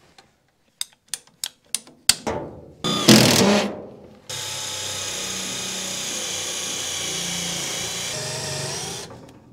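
Cordless drill/driver running steadily for about five seconds against a screw in sheet metal, set in reverse so the screw does not drive in. Before it come a few sharp clicks and a loud short noise about three seconds in.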